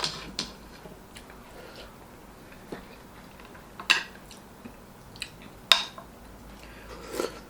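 Spoon and fork clinking against a plate and bowl during a meal, about five sharp clinks with the loudest two near four and six seconds in, with quiet eating sounds between.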